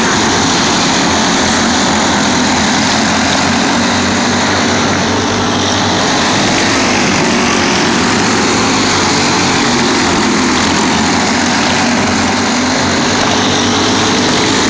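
A pack of junior racing go-karts with their small engines running together as they race past. The sound is loud and steady, with slight dips as the pack goes around.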